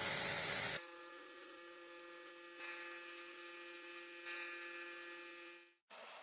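A brief burst of hiss, then a small electric power tool's motor running with a steady whine, with two louder noisy stretches as it works; it cuts off suddenly near the end.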